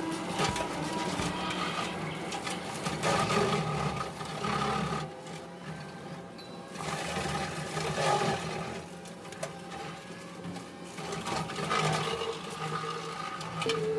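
Kubota SVL65 track loader's diesel engine running steadily with its hydraulic brush cutter working, a continuous mechanical drone that eases off for a couple of seconds midway.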